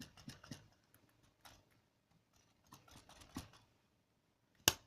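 Plastic clicks and rattles of a LEGO Technic rally car model being handled as its suspension is worked, with one sharp click near the end.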